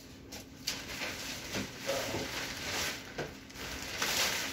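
Thin clear plastic sheeting rustling and crinkling as it is handled and lifted, with a few light knocks as a metal step ladder is climbed. The rustle is loudest near the end.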